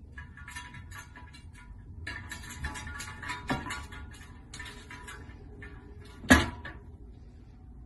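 A cat's paws tapping and scraping on a glass coffee-table top from underneath, a run of small ticks and scuffs, with one sharper knock about six seconds in as the cat twists over and bumps the table.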